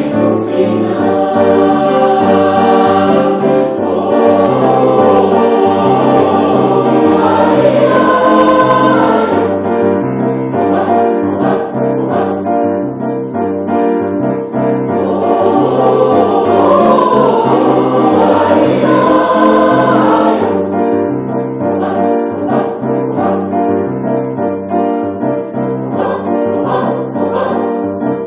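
Music with a choir singing over a repeating bass line, swelling into two fuller passages, then thinning out with lighter accompaniment toward the end.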